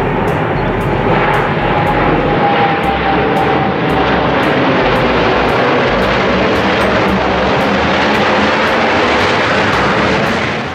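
Four Boeing F/A-18 Hornet jets passing low overhead in close formation with landing gear down. Their engines make loud, steady jet noise, with a whine that slides slowly down in pitch in the first few seconds.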